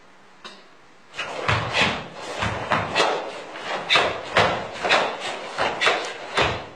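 Karate gi snapping with a rapid series of strikes and blocks, with bare feet thudding on the dojo floor: about a dozen sharp cracks, roughly two a second, starting about a second in, several with a heavy thump beneath.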